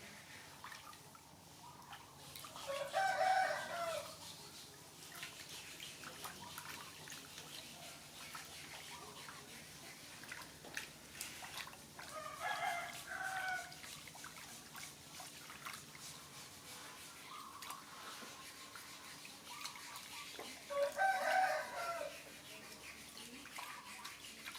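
A rooster crowing three times, about nine seconds apart, each crow lasting a second or so. Faint dripping and splashing of bath water runs underneath.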